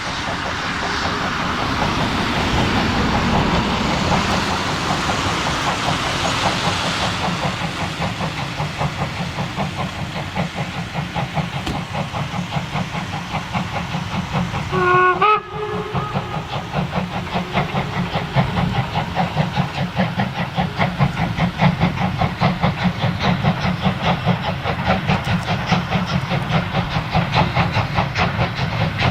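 Class 52 steam locomotive 52 1360 working a train: a broad hiss of steam with its exhaust beats, a short whistle blast about halfway, then, after a sudden break, fast, even exhaust chuffs.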